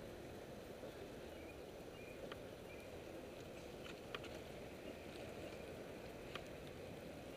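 Steady rolling and wind noise of a bicycle riding on city pavement, with about four sharp clicks or rattles spread through it.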